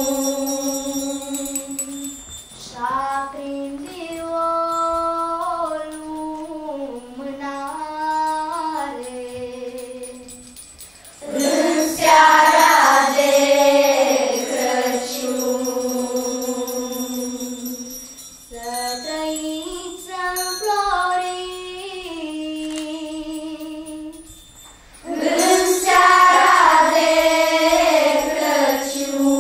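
Children's choir singing a song, with quieter stretches and two louder passages that begin about 11 and 25 seconds in.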